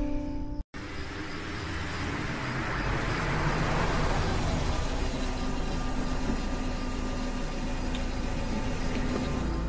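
A convertible car drives up and pulls in, its engine and tyre noise swelling to a peak about three to four seconds in, then settling to a steady hum.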